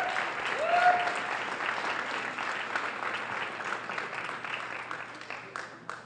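Audience applauding, with a couple of voices cheering in the first second; the clapping slowly dies away near the end.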